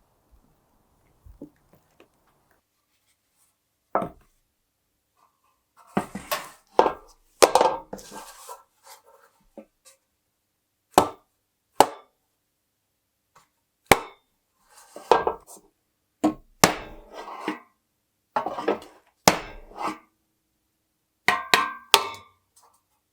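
A series of sharp knocks and clatters of hard objects striking, a dozen or so at irregular intervals starting about four seconds in, some with a short ring.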